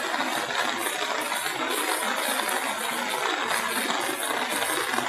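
A river in flood after heavy rain, its swollen water rushing as one steady, even noise.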